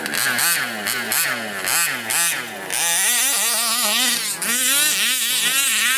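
Small two-stroke petrol engine of an FG Baja large-scale RC buggy, revved up and down in quick blips about twice a second. For the last three seconds it is held at high revs with a fast, warbling pitch.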